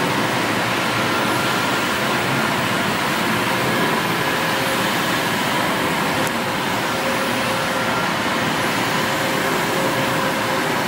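Steady machinery noise: a dense, even hiss with a few faint steady tones running through it.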